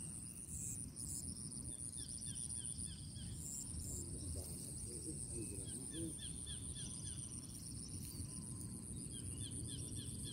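Outdoor field ambience: a steady high insect whine, with runs of quick chirps several times a second coming in clusters. A short lower call sounds about four to six seconds in, over a low rumbling noise throughout.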